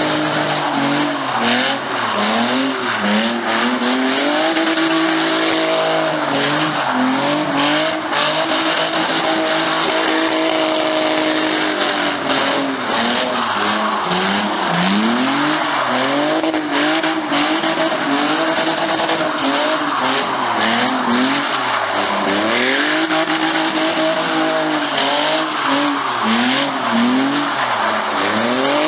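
Car engine revving up and down over and over, at times held high, while the tyres spin and squeal: a burnout or drift.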